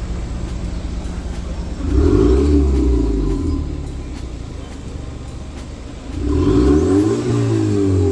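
Turbocharged car engine accelerating hard twice. Its note climbs and drops back each time, and a faint rising whistle is heard during the second pull.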